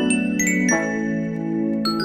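Background music: a light tune on bell-like mallet percussion such as a glockenspiel, with a new chord of ringing notes about every half second.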